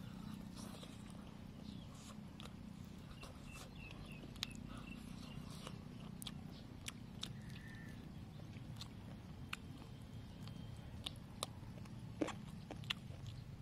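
Close-up eating sounds from a chicken leg eaten by hand: chewing, biting and wet lip smacks, heard as scattered sharp clicks, the loudest about four seconds in and near the end. A steady low hum sits underneath.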